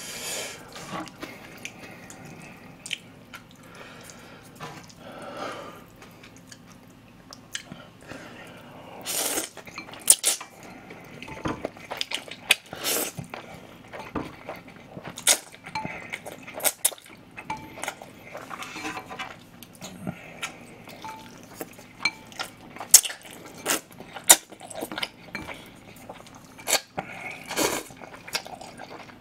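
Close-up eating sounds of a person slurping and chewing chewy noodles in sauce: irregular wet mouth smacks and clicks, with chopsticks clinking against the bowl and tray, and one longer slurp about nine seconds in.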